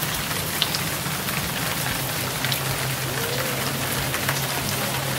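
Indoor rain-curtain water feature: many thin streams of water pouring from a ceiling ring and splashing down, a steady rain-like hiss with a low steady hum underneath.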